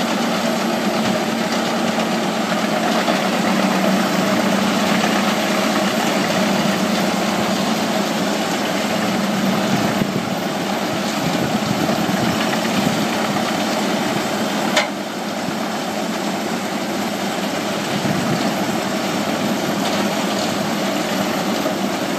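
Eschlböck Biber 84 wood chipper, driven by a Fendt 939 tractor, chipping a whole conifer fed in by its crane: a steady, dense grinding of the chipper with the tractor engine under load. One sharp crack comes about two-thirds of the way through.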